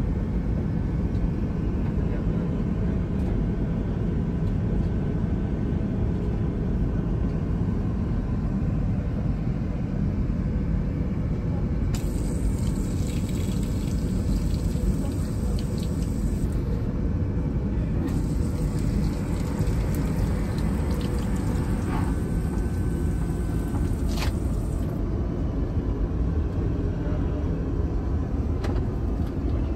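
Steady low rumble of an Airbus A380-800 heard from inside the economy cabin, the engine and airflow noise holding at an even level throughout.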